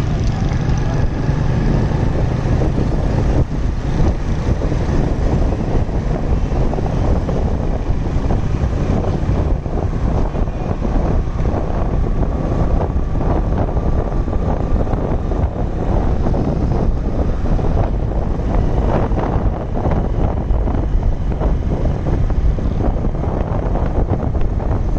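Steady wind rush on the microphone from a moving motorcycle, with the bike's engine and road noise running underneath.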